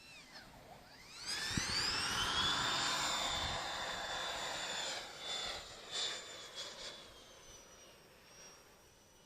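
Electric ducted fan of a large RC jet whining up sharply in pitch as the throttle opens, holding a steady high whine with the rush of air for a few seconds, then fading away.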